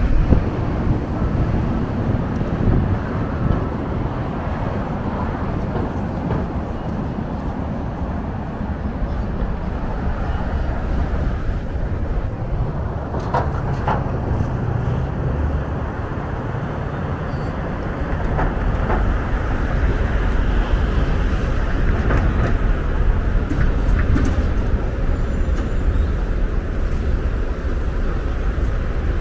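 City street traffic: a steady low rumble of passing vehicles, with a few short clicks partway through.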